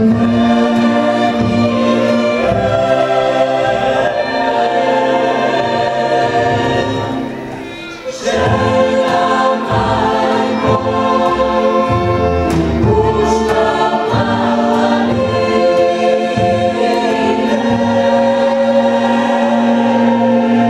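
Mixed choir of men and women singing a Macedonian folk song together, with a small folk band of violins, guitars and double bass behind them. The voices fade at the end of a phrase about seven seconds in and the next phrase comes in a second later.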